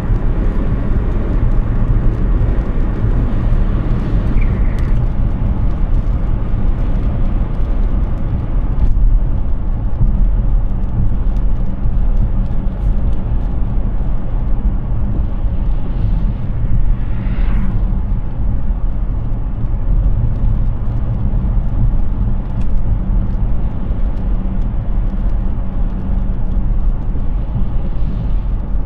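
Hyundai Ioniq 6 electric car driving at road speed: steady tyre and wind noise with a heavy low rumble and no engine note. A short high squeak comes about four seconds in.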